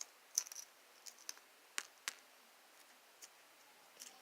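Scattered small clicks and ticks, about six over a few seconds, from foam beads being picked off a plastic decoration by hand.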